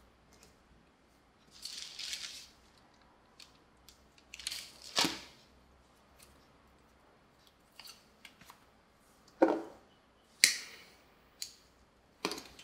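Handling noises with rustling in the first half, then a few sharp clicks near the end as a cigarette lighter is struck.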